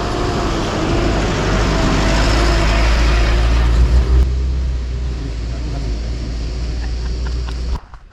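A road vehicle on the move: steady road and wind noise with a heavy low rumble and a faint engine note that drifts up and down, cutting off abruptly near the end.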